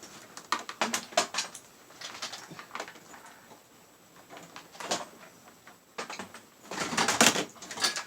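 Handling noise of a computer cable being picked up and moved: scattered clicks and knocks of its plug ends and rustling, with a louder rustle about seven seconds in.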